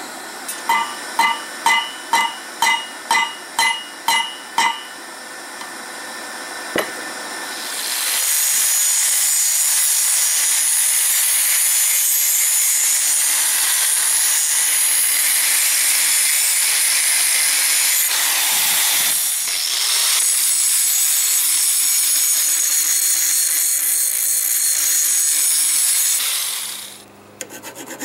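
About nine quick hammer blows on steel over an anvil, each ringing, then a single blow a couple of seconds later. Then an angle grinder with a cut-off wheel cuts through steel rebar for about eighteen seconds, a steady loud whine with a dip partway, and stops near the end.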